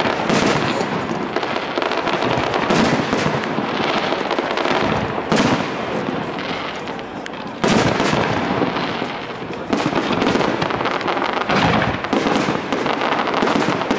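Fireworks display: aerial shells bursting in quick succession over a continuous crackle, with louder bangs every two seconds or so.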